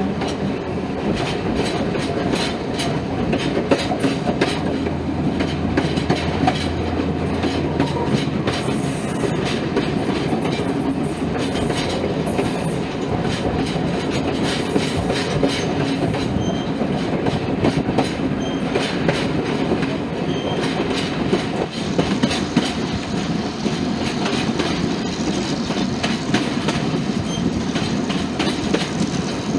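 Diesel-hauled passenger train running steadily along the track, its wheels clicking over the rail joints under a constant rumble and low hum.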